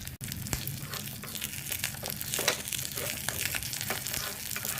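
Egg frying in a pan, a steady sizzle with many small crackling pops.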